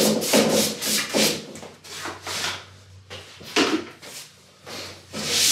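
Hand broom sweeping sanding dust off a sanded wooden board top in quick brushing strokes. Then a quieter stretch with a few light knocks, and rubbing strokes on the wood start again near the end.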